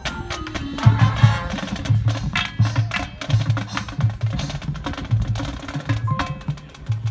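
Marching band playing a percussion-led passage: a steady pattern of low drum strokes about twice a second under sharp clicks, with held pitched notes coming in near the end.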